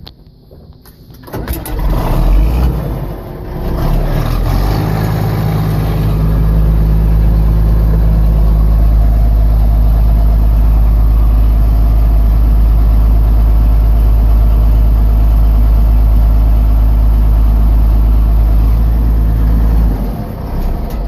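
Tractor engine cranking and catching about two seconds in, then running steadily with a low, even drone before dying down near the end.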